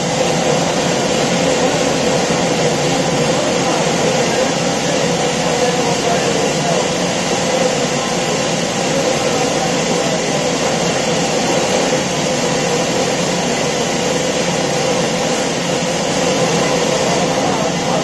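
Horizontal band sawmill running, its electric motor and belt-driven band blade making a loud, steady mechanical whir.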